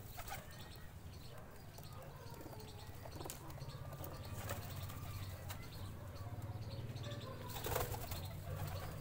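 Domestic pigeons bathing in a tub of water, beating their wings and splashing in several short bursts, the biggest near the end. A steady low rumble runs underneath.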